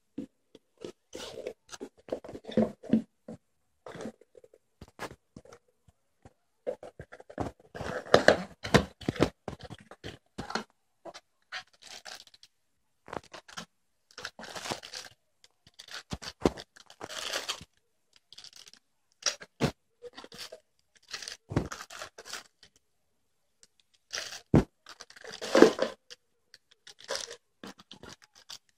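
Hands unpacking cardboard boxes and plastic-bagged accessories: irregular rustling, crinkling and scraping in short bursts, with a few sharp knocks.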